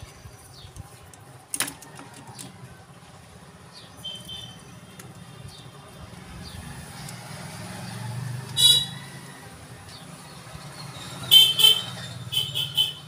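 Road traffic with a low engine hum and short vehicle-horn toots: one loud toot about nine seconds in and a quick run of toots near the end. A sharp click about a second and a half in.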